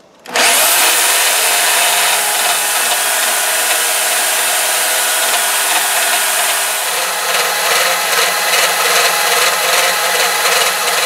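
Portable bandsaw starting up with a short rising whine, then running steadily as its blade cuts into a metal tool-holder block clamped in a vise.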